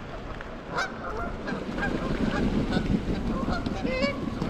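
A flock of geese honking repeatedly as they take off from the river, with a rush of wingbeats and splashing water swelling about two seconds in.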